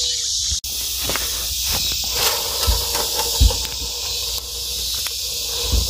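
A steady high hiss, broken by a brief dropout less than a second in, with a few dull low thumps later on.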